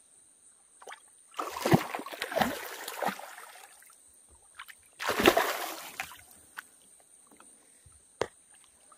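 Kayak paddle strokes splashing and sloshing in river water, in two bursts about a second and a half and five seconds in, with a single light click near the end.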